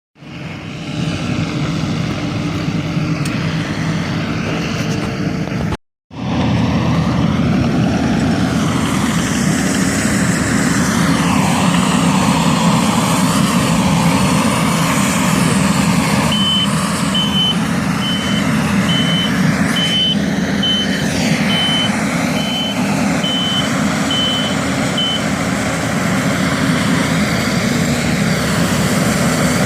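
Bobcat skid steer running, with steady heavy machine noise from the engine and stump grinder work. Its backup alarm beeps evenly, about once every 0.7 seconds, from the middle until near the end while the machine reverses. The sound cuts out briefly about six seconds in.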